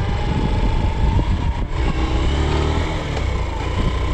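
Motorcycle engine running as it is ridden, over a steady rush of road noise. A low engine note comes up more strongly from about two seconds in.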